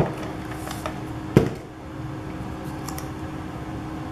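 Paper pieces and craft tools handled on a tabletop: a light click at the start, one sharp knock about a second and a half in, and faint ticks near the end, over a steady low hum.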